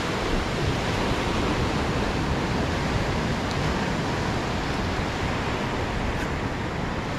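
Ocean surf breaking and washing up a sandy beach: a steady, even rush of noise.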